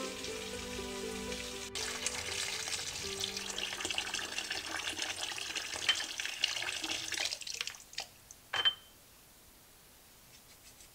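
Tap water running into a stainless steel sink over lemons, splashing, until it stops about seven and a half seconds in; a few sharp knocks follow. Soft background music plays under the water in the first half.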